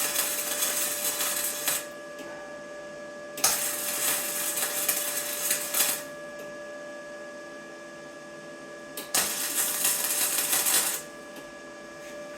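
Electric arc welder laying three short welds on thin steel, each a crackling burst of about two seconds with pauses between, over a steady electrical hum.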